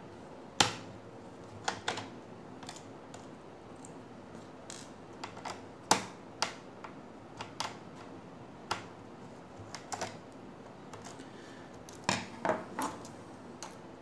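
Irregular sharp plastic clicks and taps from hands and a small tool working on the bottom case of a Dell Inspiron 3576 laptop, about fifteen in all, the loudest about half a second in and again near six seconds.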